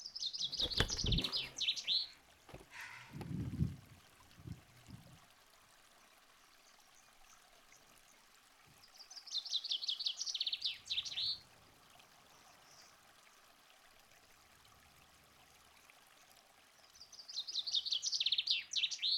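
Eurasian hobby calling: three runs of rapid, high, sharp repeated notes, each about two seconds long and dropping slightly in pitch. The first run comes at the start, the second about ten seconds in and the third near the end. A few low bumps sound in the first five seconds.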